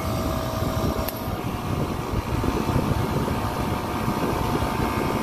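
Copeland digital scroll compressor running steadily. About a second in there is a single click and the tone of its running changes, typical of the digital scroll's solenoid valve cycling to unload and load the scrolls and so vary its capacity.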